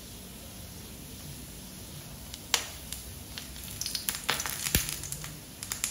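Sausages frying in shallow oil in a non-stick pan as they are turned with a fork. A low, even sizzle runs for the first half, then sharp spits and crackles start about halfway in, one loud pop first and then a dense run of them near the end.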